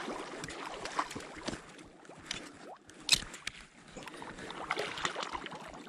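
A hooked fish thrashing and splashing at the water's surface close to shore as it is played toward a landing net, with water sloshing around it. The sharpest, loudest splash comes about three seconds in.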